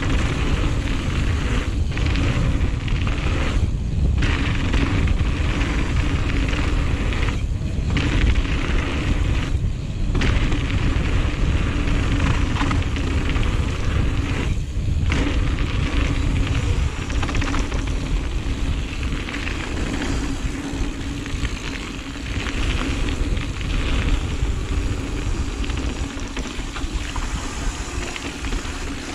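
Wind rushing over a GoPro's microphone and mountain-bike tyres rolling over a dirt trail during a fast descent: a steady, heavy rumble with a few brief dips.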